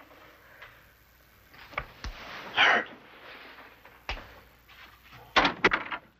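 Scattered sharp knocks and clicks with a brief rustle, ending in a quick cluster of three or four louder knocks: knocking at a door and the door being opened.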